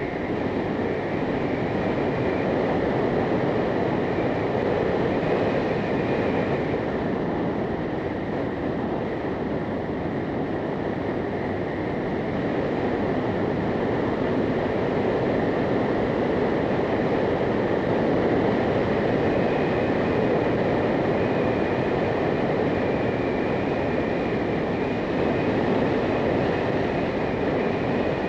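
Motorcycle on the move: a steady, unbroken rush of wind and engine noise.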